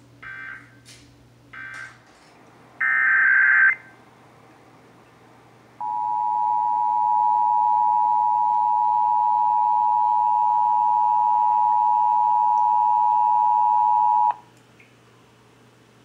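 Emergency Alert System test heard through a small portable radio's speaker: a few short bursts of EAS digital header data tones, the last and loudest about three seconds in, then the two-tone EAS attention signal, a steady double tone held for about eight and a half seconds that cuts off suddenly.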